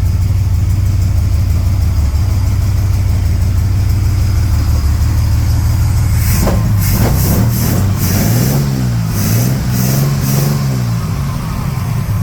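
1938 SS Jaguar 3½ Litre's straight-six engine running steadily, then from about six seconds in its revs rise and fall several times in uneven surges. The owners suspect it is running out of petrol again.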